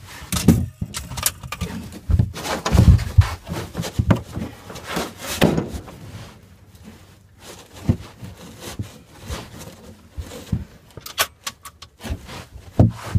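Clothing rustling, with irregular knocks, scrapes and clicks of bodies and gear shifting on the plywood floor and walls of a small wooden shooting hut. It is busiest in the first several seconds, then settles to lighter taps and clicks.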